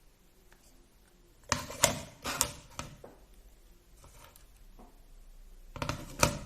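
Sharp clicks and knocks of small plastic RC car suspension parts being handled and fitted together, in two short clusters: several clicks around two seconds in and a few more near the end.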